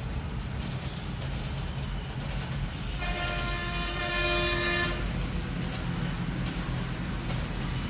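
A vehicle horn gives one steady honk of about two seconds, starting about three seconds in, over a continuous low rumble of traffic.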